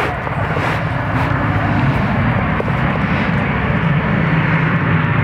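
Compressed air from a filling bottle rushing steadily into a PCP air rifle's reservoir through the fill hose as the rifle is charged to about 200–230 bar.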